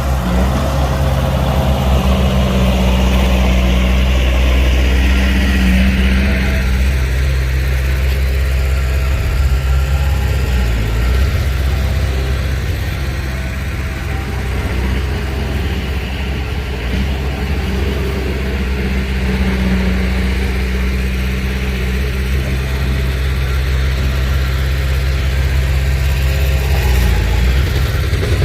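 Heavy diesel engines of earthmoving machinery running steadily, the note swelling and easing as the machines work under changing load.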